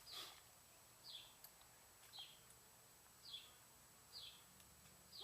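A bird calling: one short chirp falling in pitch, repeated about once a second, six times.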